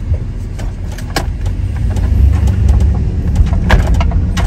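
Van engine and road rumble heard from inside the cab as the van pulls away and gathers speed, growing louder about two seconds in, with a few light clicks.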